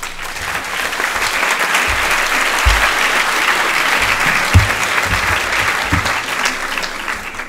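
Audience applauding: a dense patter of many hands clapping that builds within the first second, holds, and thins out near the end, with a few dull low thumps underneath.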